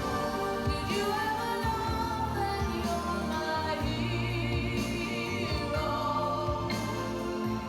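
Slow music with singing: voices hold long notes with vibrato over steady low accompanying notes.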